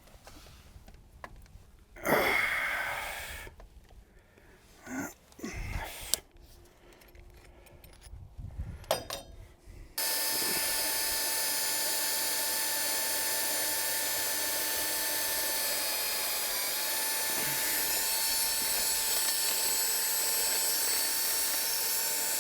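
A handheld power drill runs steadily with a constant whine for the second half, drilling into a broken stud. Before it come scattered handling knocks and a louder scrape about two seconds in.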